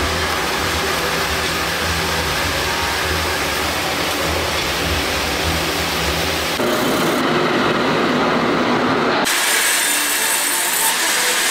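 Steady machinery noise of a steel rolling mill's cooling bed as hot rebar is moved across it, with a low hum underneath. About nine seconds in, it gives way to a bandsaw cutting a wooden slab.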